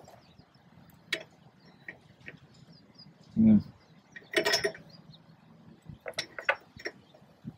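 Scattered light clicks and metal clinks of hardware being handled, with a short low thump about three and a half seconds in and a louder cluster of clinks about a second later.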